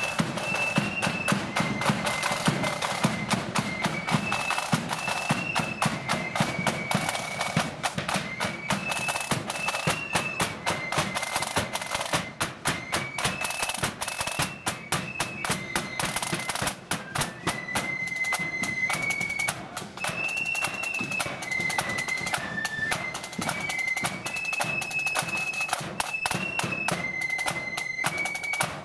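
Blood-and-thunder marching flute band playing on the march: shrill flutes carry the tune over rapid side-drum rolls and a pounding bass drum. The flutes drop out for a few seconds midway while the drums keep going.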